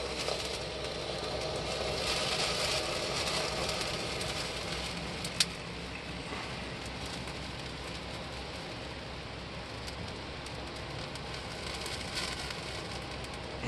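Iron oxide–aluminium thermite burning, jetting flame and sparks: a steady hiss with faint crackles, and one sharp pop about five and a half seconds in.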